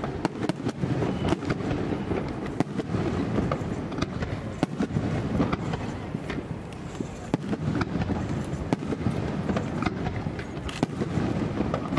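Aerial firework shells bursting: sharp bangs at irregular intervals, several to a couple of seconds apart, over a steady low rumble.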